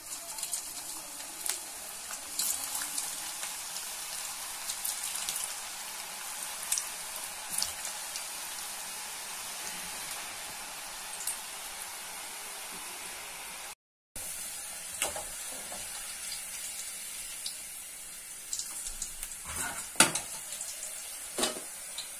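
Potato sticks deep-frying in hot oil in a steel kadai, the first of two fryings for French fries: a steady sizzle with scattered crackles and pops. A few sharper clicks stand out near the end.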